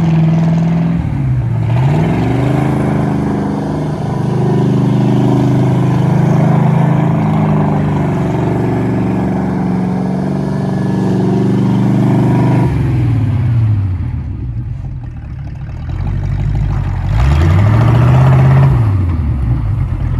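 Lifted Nissan 240SX's engine pulling away and accelerating through the gears. The pitch climbs, drops at a gear change about a second and a half in, then climbs and holds steady for some ten seconds. It falls back to a quieter stretch after that, then revs up again briefly near the end and drops.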